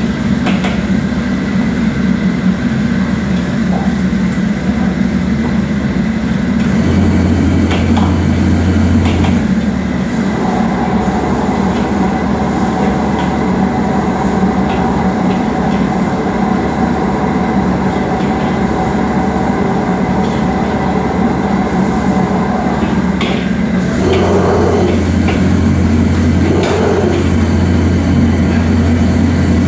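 Commercial gas wok burner and kitchen extraction hood running with a steady loud low rumble, with occasional short clanks of metal on metal. The rumble grows stronger briefly about a quarter of the way in and again near the end, when the burner flame is up under the wok.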